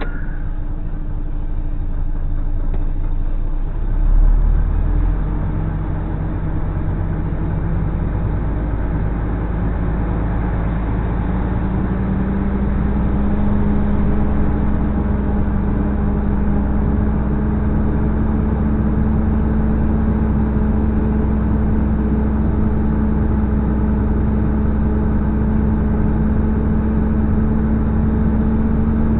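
A truck's diesel engine heard from inside the cab as the truck pulls away. The engine note climbs slowly over the first ten seconds or so, then runs steady. There is a brief low rumble about four seconds in.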